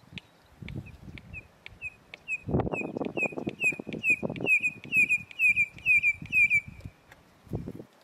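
Red-crested korhaan calling: a series of piping whistled notes that starts sparse, quickens and swells to about three loud doubled notes a second, then stops abruptly near the end. A low rumbling noise runs beneath the louder part of the call.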